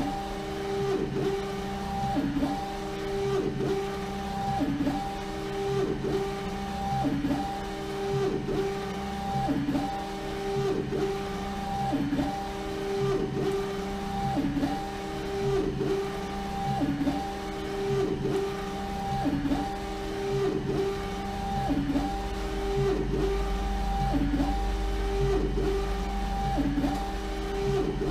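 LogoJet UVx60XL UV printer printing a full wrap onto a bottle turning in its rotary jig. The print-head carriage shuttles back and forth with a motor whine that swells and fades about every 1.2 seconds. A low hum joins in about three quarters of the way through.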